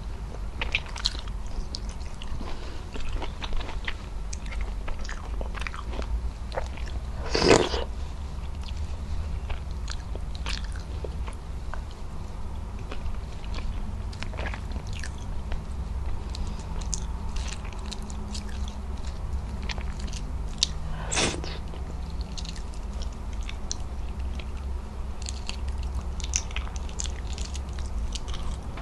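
Close-miked chewing and mouth sounds of a person eating beef-trotter adobo with rice: many small wet clicks and smacks as she chews. Two louder, sharper smacks come about seven and twenty-one seconds in, over a steady low hum.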